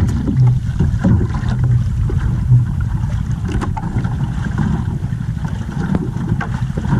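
Wind rumbling on the microphone and water lapping at the hull of a small outrigger canoe, with a few faint clicks.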